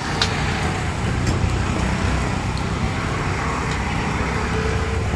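Vegetables sizzling on a hot flat iron griddle, with a few sharp metal taps of a ladle about a second apart, over a steady low rumble.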